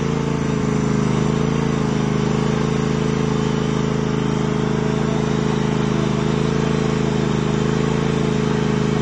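Riding lawn tractor engine running steadily while the tractor sits bogged down in deep mud, its pitch wavering slightly.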